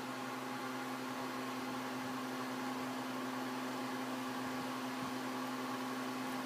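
Steady, unchanging hum with a constant hiss, like a fan or household appliance running.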